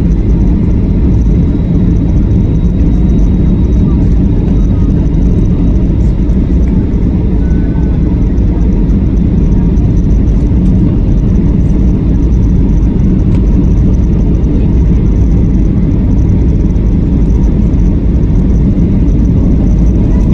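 Steady engine and airflow noise of a Boeing 737-800 with CFM56-7B turbofans, heard inside the passenger cabin during the final approach to landing.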